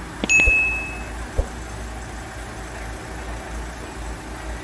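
Ambulance van's engine idling with a steady low rumble. About a third of a second in there are a few sharp clicks and knocks and one short electronic ding.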